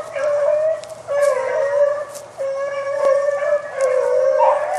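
Hunting hounds baying in long, drawn-out howls while running a rabbit, the calls going on almost without a break, with more voices joining near the end.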